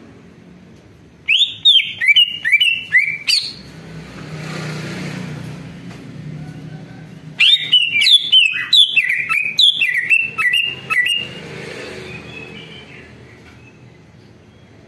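Male greater green leafbird (cucak ijo) singing in two bursts of rapid, sharp whistled notes. The first starts about a second in and lasts about two seconds; the second starts about seven seconds in and lasts nearly four seconds.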